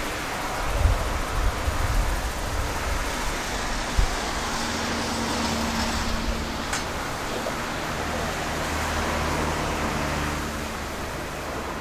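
A motor vehicle passing on a road: a steady engine hum over tyre hiss that swells and then fades. Wind buffets the microphone in the first two seconds, and there is a single knock about four seconds in.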